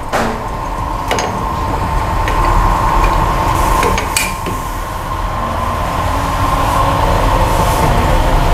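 Hydraulic wheel-straightening press running as it presses a bent alloy rim back into shape: a steady high whine over a low hum that slowly grows louder. Three sharp metallic clicks sound at the start, about a second in, and about four seconds in.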